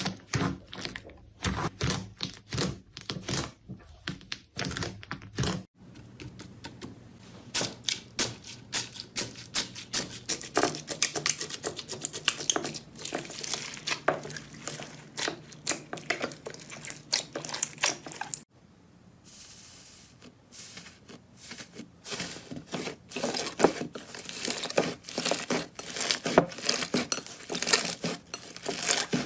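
Slime being squeezed, pressed and poked by hand, making runs of crisp crackles, clicks and pops. The sound changes abruptly about six seconds in and again near nineteen seconds, as one clip gives way to the next.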